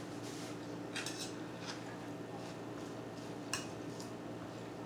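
A metal fork clicking lightly against dishes a few times while picking up salad, with one sharper clink about three and a half seconds in, over a low steady hum.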